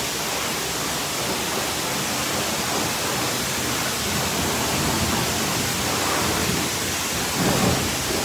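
High-pressure spray wand of a coin-operated self-service car wash, water jetting steadily onto a car in a constant hiss.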